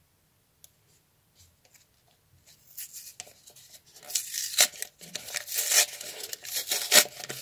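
Paper crinkling and tearing as a small folded paper packet is pulled open by hand. It starts faintly about two and a half seconds in and grows louder, with many sharp rips and rustles.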